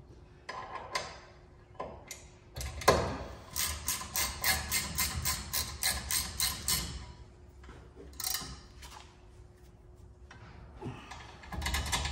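Hand ratchet wrench clicking in quick, even strokes, about four clicks a second, as a disc brake caliper's mounting bolts are run down. It pauses, clicks briefly again, and starts up once more near the end.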